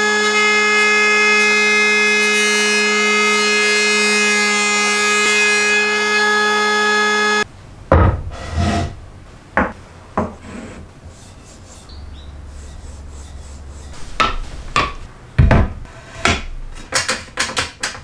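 Makita KP180DZ 18V cordless electric planer running at full speed with a steady whine while a board is pushed under its cutter head, then cutting off suddenly about seven seconds in. After it, wooden pieces are set down and slid on a plywood base, with scattered knocks and a quick series of sharp knocks near the end.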